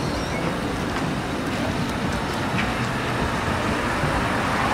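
Steady road traffic noise of cars running and passing: an even rumble and hiss with no distinct events.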